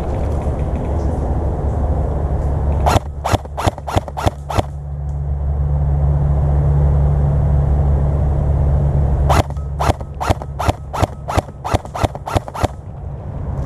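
Airsoft rifle fired in two strings of single shots, each a sharp crack: about six, then a pause, then about eleven more, three to four shots a second. A steady low rumble lies under it.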